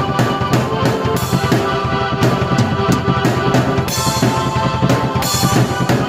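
Drum kit and keyboard played together: a steady kick-and-snare beat under held keyboard notes.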